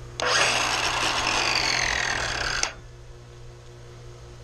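Cordless circular saw starting up and running for about two and a half seconds, its whine sagging in pitch, then cutting out suddenly. The abrupt stop is the battery cutting out, which the owner suspects is faulty even though it should have been charged.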